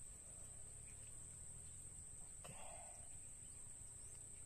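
Faint, steady high-pitched drone of insects, with one brief soft sound about two and a half seconds in.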